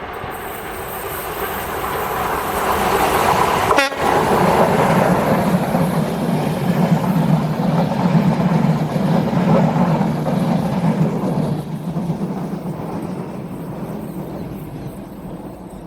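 Passenger train hauled by a Skoda 68E electric locomotive passing by: rumble and wheel-on-rail noise that builds over the first few seconds, stays loud through the middle, and fades away as the train recedes.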